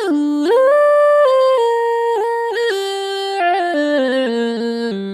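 A girl's sneeze drawn out into a sung tune: a string of held notes stepping up and down, settling onto low notes near the end and breaking off abruptly.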